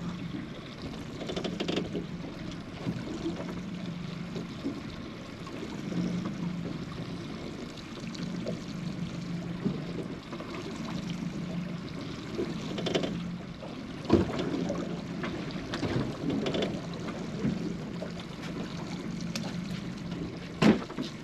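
Water sloshing and lapping against the hull of a small boat, over a steady low hum, with a few sharp knocks now and then.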